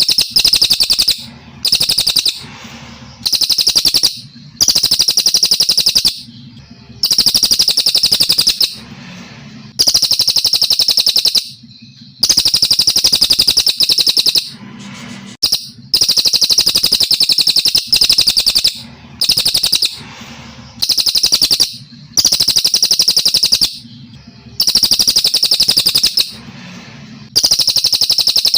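Brown cililin songbird singing continuously: high, rapid trilling phrases of about a second or more each, repeated roughly every two seconds with short pauses between.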